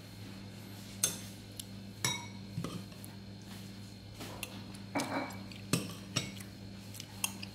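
Metal spoon clinking and scraping against a ceramic soup bowl, with about nine sharp knocks at irregular intervals of roughly a second and a brief scrape about five seconds in. A low steady hum runs underneath.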